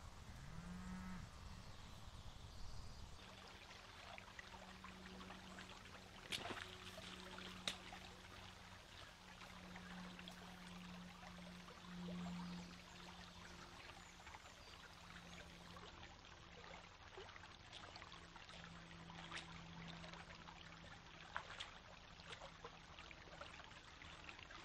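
Faint trickle of a shallow woodland stream, with a low steady hum underneath and a couple of sharp clicks about six and eight seconds in.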